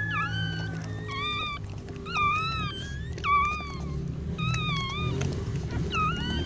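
Newborn puppies whining: about seven short, high-pitched squeaking cries, roughly one a second, each dipping and rising in pitch.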